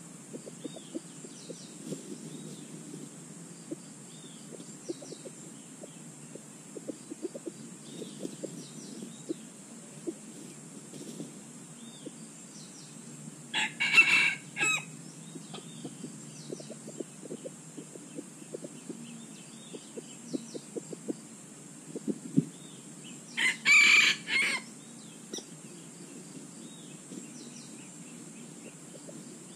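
A rooster crowing twice, about ten seconds apart, over a steady high insect drone, with scattered faint bird chirps.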